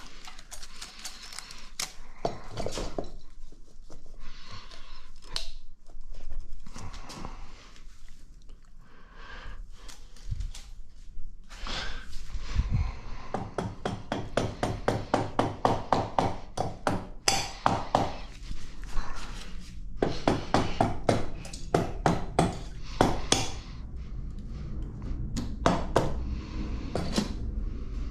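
Metal hand tools and engine parts clinking and knocking during work on a Honda TRX400EX engine's top end, with long runs of quick, evenly spaced clicks.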